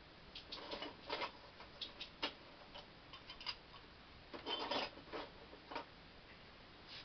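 Irregular light clicks and taps from small hard objects being handled, with a cluster about a second in and another a little after four seconds.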